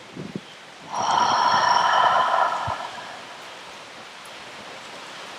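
One long audible breath, a hissing exhale of about two seconds that starts about a second in and fades away. It sits over a steady background hiss of rainforest and rain.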